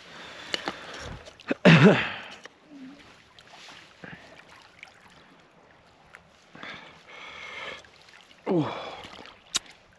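A man sipping broth from a metal camp cup, letting out a loud falling 'ahh' about two seconds in and a shorter one near the end, with soft slurping between.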